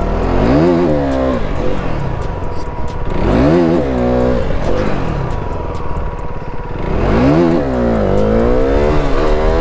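Motorcycle engine revved three times, its pitch climbing and dropping back each time, the last rev longer.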